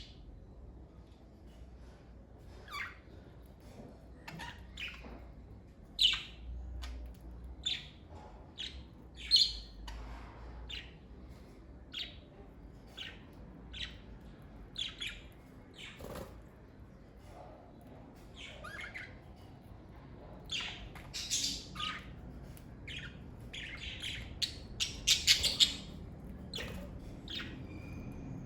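Pet budgerigars chirping and squawking: short, sharp, high calls about once a second, with a quicker, louder run of calls shortly before the end.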